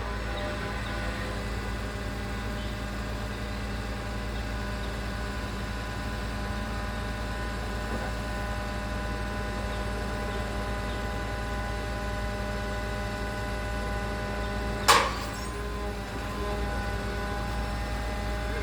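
Concrete pump's engine running steadily, with a single sharp clank about fifteen seconds in.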